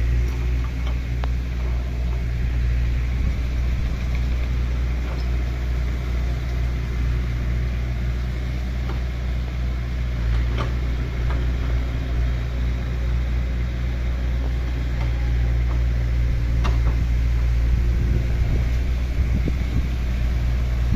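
Excavator's diesel engine running steadily at a constant pitch, with a few light knocks about halfway through and again later.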